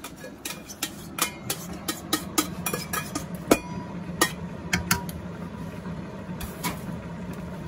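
Stainless steel container knocking and clinking against the rim of a large stainless steel stockpot as cooked vegetables are tipped and scraped out into it: a quick run of metallic knocks over the first five seconds or so, then only a couple more. A steady low hum runs underneath.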